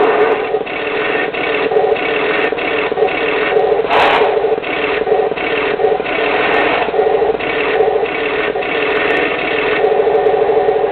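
Radio-controlled model tank's built-in sound unit playing an engine-idle effect through its small speaker: a steady, rough running sound with an uneven flutter. A short sharp noise about four seconds in.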